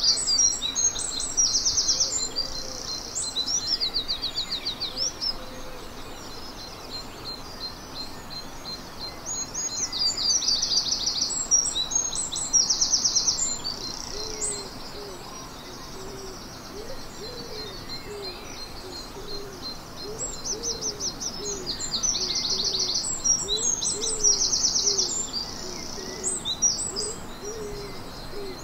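Songbirds singing at dawn: loud, high, rapid trilling song phrases that come in bouts about every ten seconds, over a wider chorus of birds. From about halfway on, a lower bird repeats short hooting notes.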